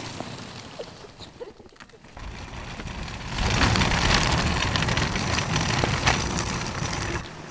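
Shopping trolley rolling fast over rough concrete and grit, its small castor wheels and wire basket rattling. It starts softly, grows to a loud rumble about three seconds in, and cuts off abruptly near the end.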